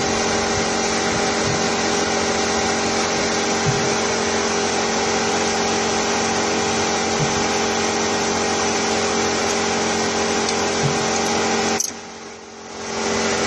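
Steady whirring hum of a running electric motor-driven machine with a fixed pitch, a few faint low taps over it, dropping away about twelve seconds in.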